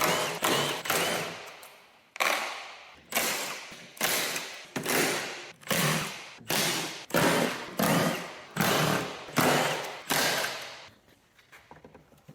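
Power tool run in short repeated bursts, roughly one a second, each starting sharply and dying away, stopping shortly before the end.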